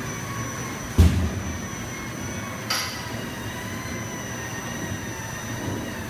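Factory production machinery running, a steady drone with high, constant whining tones, apparently the line winding a large roll of green sheet material. A loud knock comes about a second in and a smaller, sharper one just under three seconds in.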